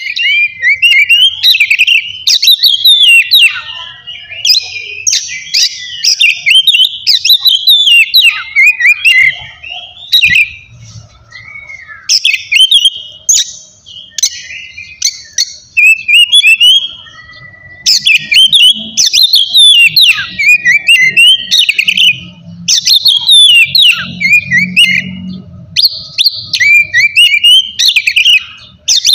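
Oriental magpie-robin (kacer) singing loudly in a long run of rapid, varied whistles and chirps, broken by a few short pauses.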